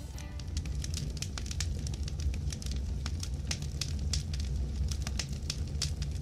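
Fire burning: a steady low rumble with frequent sharp, irregular crackles and pops.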